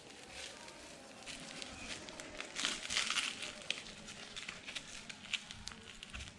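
Rustling and crinkling of cloth and the nylon straps of a combat application tourniquet as gloved hands tuck the windlass rod and strap in place, with scattered small clicks; the loudest rustle comes near the middle.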